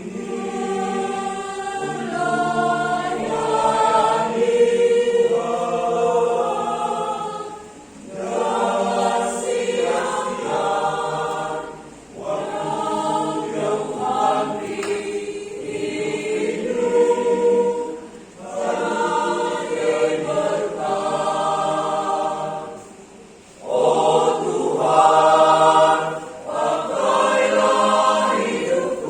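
Choir singing a hymn in several voice parts, in long phrases with brief pauses for breath between them.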